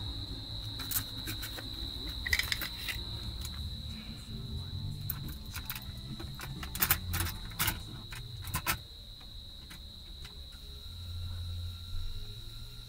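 A cassette tape being handled and pushed into a car stereo's tape deck: a string of sharp plastic clicks and clacks, the loudest about seven and nine seconds in. A steady high chirring of crickets runs underneath.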